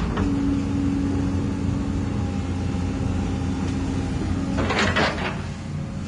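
Scale RC hydraulic excavator working: a low motor hum under a steady pump whine that stops after about four and a half seconds, followed by a short scrape of dirt and stones as the bucket digs in.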